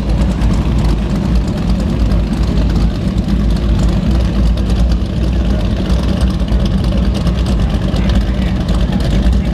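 High-performance catamaran powerboat's engines idling as the boat creeps away from the dock, a steady low rumble.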